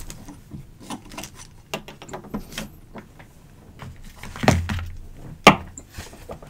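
Handling noise as tools and parts are picked up and a silicone work mat is lifted away: a string of light clicks, taps and knocks, with two louder knocks about a second apart near the end.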